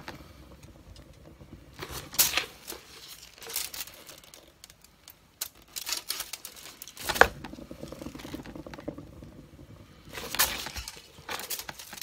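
Crinkling of the aluminium foil that covers a paint-pouring turntable, with scattered knocks as gloved hands stop the spin and spin it again. The sharpest knock comes about seven seconds in.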